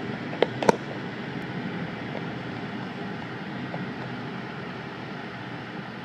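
Steady road and engine noise of a moving car heard from inside the cabin, with two sharp clicks less than a second in.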